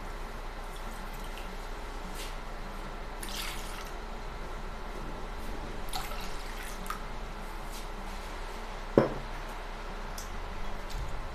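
Water and then milk poured from glasses into a glass mixing bowl, faint splashing and dripping over a steady low hum. One sharp knock about nine seconds in.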